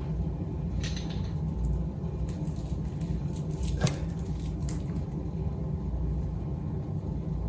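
Steady low room hum with a few faint light clicks, one sharper click about halfway through.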